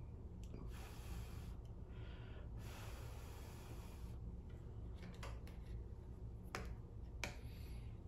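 Quiet handling sounds of hand soldering wires: two breathy rushes of air in the first half, then a few light clicks and taps, over a low steady hum.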